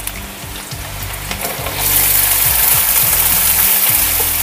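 Diced potato and cumin sizzling in hot ghee in a steel kadhai. About two seconds in, the sizzle turns much louder and hissier as soaked sago pearls are poured into the hot fat. A low steady hum runs underneath.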